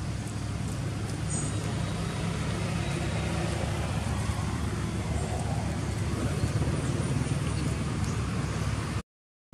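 Steady low background rumble with a hiss over it, with a few faint ticks; it cuts out to silence about nine seconds in.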